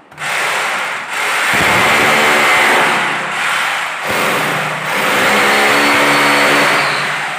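Corded electric drill boring holes into a wall for bracket plugs, the motor running steadily under load with brief dips about one and four seconds in, then winding down at the end.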